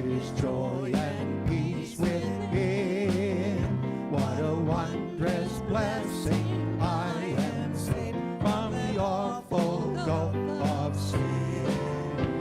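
Gospel hymn played by a church band, with a singer holding long notes with vibrato over sustained chords.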